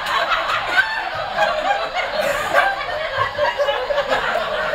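Audience laughing at a punchline, many people chuckling and laughing together.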